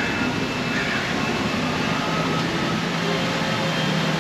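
A canal boat's motor runs with a steady low hum under a wash of even noise; the hum grows stronger about halfway through.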